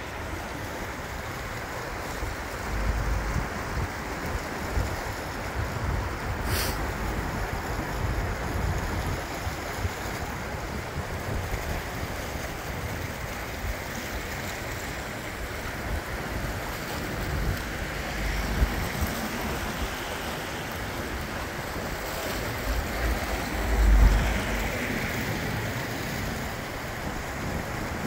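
The swollen River Wye in flood, its fast brown water rushing steadily, with wind gusting on the microphone, most strongly about three-quarters of the way through.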